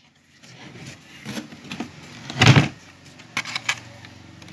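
Handling noise from a speaker being fitted in its box: a few light knocks and scrapes, with one louder thump about two and a half seconds in.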